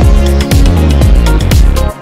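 Electronic instrumental background music with a deep sustained bass and regular hi-hat ticks; the bass cuts out near the end.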